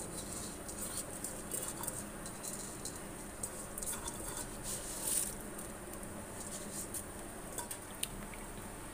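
Pot of beef yakhni stock at a rolling boil with rice just added, bubbling with many small scattered pops and crackles.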